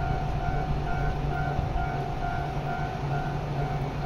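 Diesel railcar idling at the platform with a steady engine hum, while a repeating electronic beep at one pitch, about two to three a second, starts up: the departure signal before the train leaves the terminal station.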